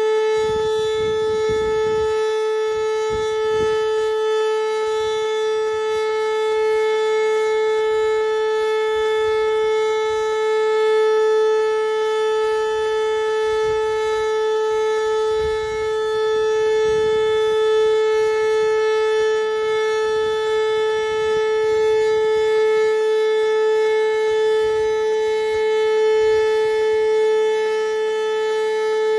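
Whelen WPS 2909 electronic outdoor warning siren sounding its steady alert tone: one loud, unbroken pitch that holds level without rising or falling, as used for severe thunderstorm warnings.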